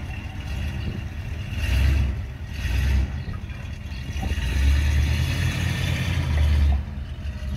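Ford Econoline E350 motorhome's V8 petrol engine running just after start-up, swelling louder several times as it is revved and the motorhome starts to pull away.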